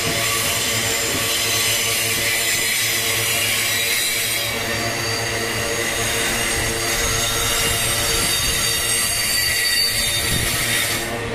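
MRS freight train's wagons rolling past, steel wheels squealing on the rails in several steady high tones over the continuous rumble of the cars. The squeal drops away just at the end.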